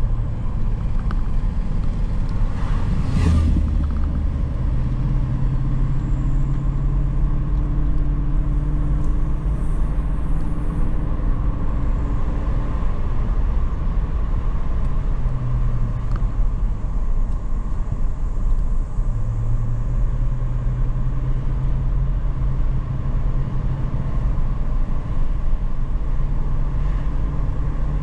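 Steady engine and road rumble of a vehicle driving, the engine note rising, falling and fading in and out as it goes, with a brief louder burst about three seconds in.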